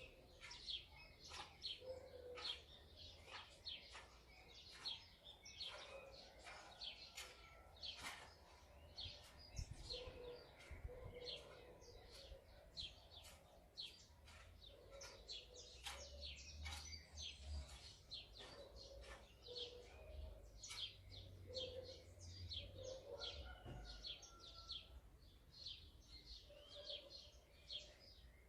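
Faint, continuous chirping of house sparrows: many short, quick chirps overlapping one another.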